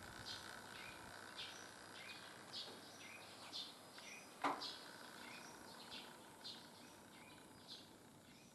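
Faint outdoor ambience of small birds chirping: short high calls repeating about once or twice a second over a low steady background. A single sharp click about halfway through.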